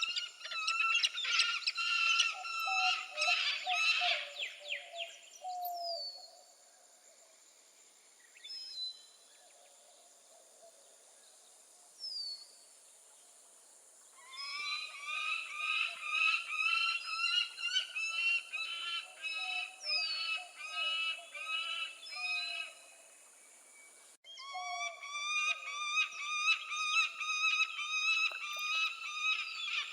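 Peregrine falcon calling in rapid series of repeated notes, several a second. The runs stop for several seconds in the middle, with only a few scattered notes, then resume near the end.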